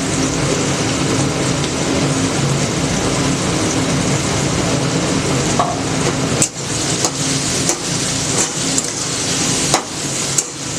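Kitchen sounds while cooking: a steady rushing hiss with a faint low hum, then from about six seconds in several sharp knocks and clatters.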